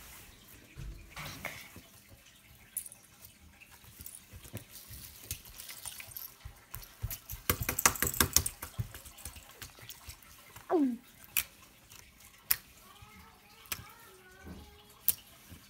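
Hands squeezing, pressing and poking glitter slime: wet, sticky squelches and crackling pops, thickest and loudest about eight seconds in, then single pops. A short falling squeak about eleven seconds in.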